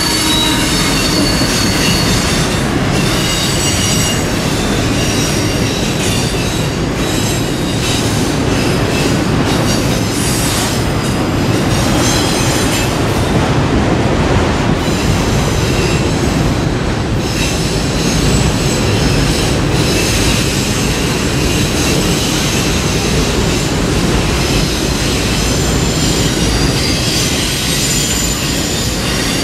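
Freight train cars rolling past, the steel wheels squealing in high, thin tones that come and go over the steady running noise of the train.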